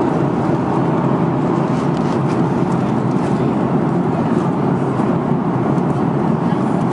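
Steady cabin noise of an Airbus A340-300 airliner in cruise: an even, deep rush of airflow and engine noise that holds the same level throughout.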